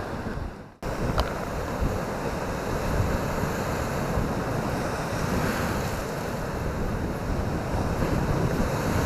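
Sea waves washing onto a beach with wind buffeting the microphone, a steady rushing sound. It drops out briefly under a second in, then resumes.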